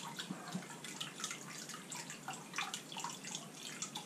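Wort dripping and trickling from a wet nylon-stocking filter into a fermenter bucket of wort, in many small irregular drips and splashes.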